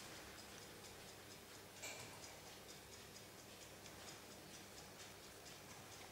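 Near silence with a faint, steady, rapid ticking, as of a clock, and one soft knock about two seconds in.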